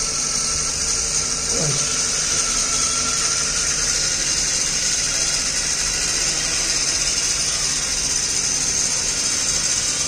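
The small DC motor of a hobby robot's grass cutter spinning its plastic blade, a steady high-pitched whir. A short falling tone sounds about one and a half seconds in.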